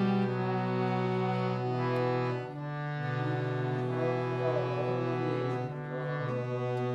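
Harmonium playing held, reedy chords that move to new notes every second or two.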